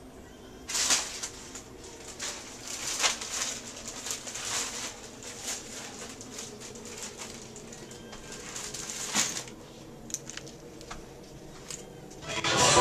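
Soft scattered rustling and light clicks over a faint steady low hum in a small room, with the louder clicks about a second in, at three seconds and near nine seconds.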